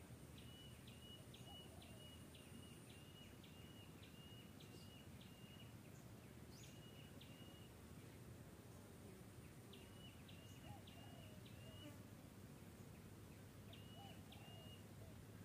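Near silence with a faint low hum, broken by a small bird's short high chirps that come in quick runs of several notes, about three a second, a few times over.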